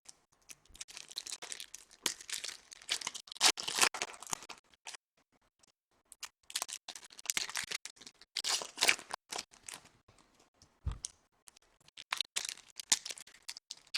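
Foil wrappers of trading-card packs being torn open and crinkled, in irregular spells with pauses between, and a single soft thump about three quarters of the way through.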